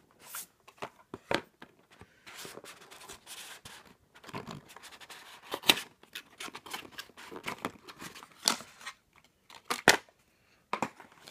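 Small cardboard advent-calendar box being pulled from its slot and opened: card scraping and rubbing, with a run of sharp clicks and snaps, the loudest about halfway through and again near the end.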